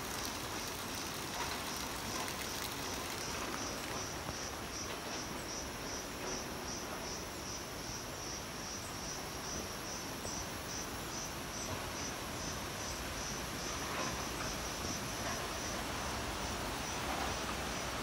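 A forest insect calling with a steady high-pitched pulse, about two and a half pulses a second, over a continuous background rush.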